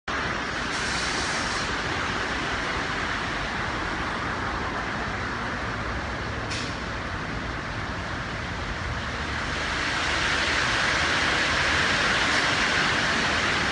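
SHIMGE 10 HP compressor running with a steady mechanical hum, growing somewhat louder after about ten seconds.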